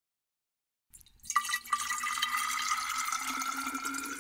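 Water sound effect for a logo intro: after a moment of silence, a couple of sharp splashes about a second in, then steady rushing, pouring water with faint tones that rise slowly in pitch.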